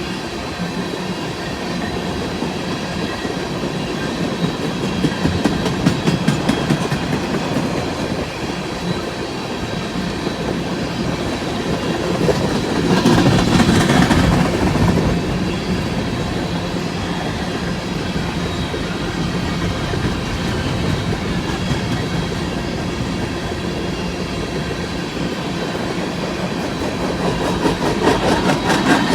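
Empty coal train rolling past: the steady rumble and rattle of empty hopper cars, with wheels clacking over rail joints. The sound grows louder for a couple of seconds about 13 seconds in.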